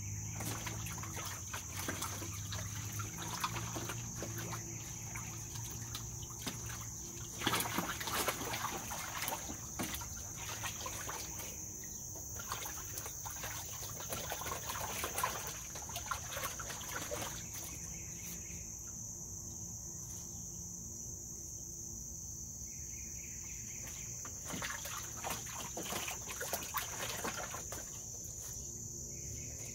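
An American mink swimming in a shallow plastic pool, churning the water in several bursts of splashing, the loudest about a quarter of the way in, with more near the middle and again near the end. Crickets chirr steadily and high-pitched in the background.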